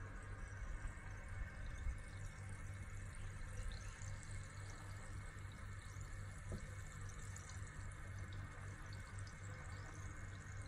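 Carbonated cola fizzing in a glass over ice, a fine crackle of popping bubbles, over a steady low hum.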